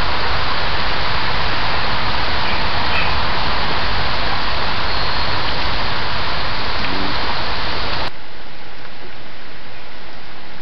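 Steady, loud hiss on a trail camera's audio track, with no clear animal calls or footsteps in it. About eight seconds in, the hiss drops a little and turns duller as the recording changes.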